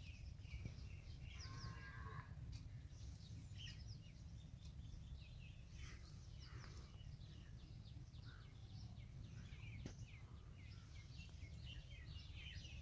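Faint outdoor ambience: small birds chirping in many short, scattered calls over a steady low rumble.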